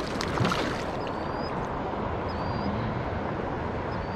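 Steady rush of a flowing river, with a few faint, short, high whistle-like chirps over it.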